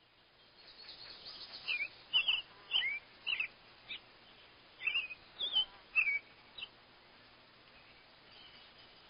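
A bird calling: a run of about ten short chirps and downward-gliding whistled notes over a faint background hiss, then a few fainter notes near the end.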